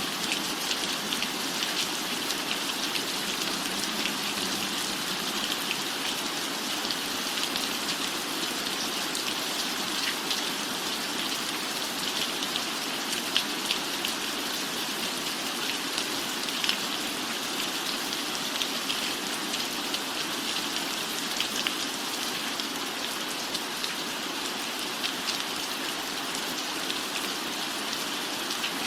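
Steady rain falling, with many distinct drops ticking close by.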